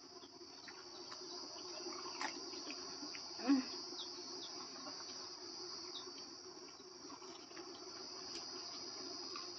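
Steady high-pitched chirring of insects, with scattered faint clicks and one brief louder sound about three and a half seconds in.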